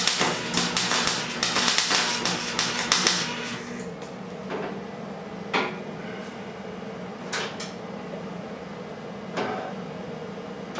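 Electric arc welding on a steel motorcycle frame: a run of crackling welding for about three and a half seconds, then four short bursts of welding a second or two apart, over a steady hum.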